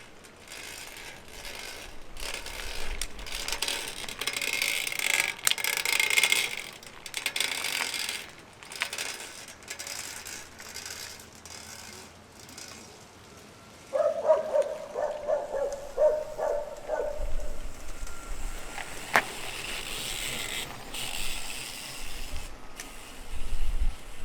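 Hand work on a Shimano XT FH-M8110 Micro Spline rear hub: metal parts scraping and clicking. About 14 s in comes a quick run of repeated clicks from the freehub mechanism.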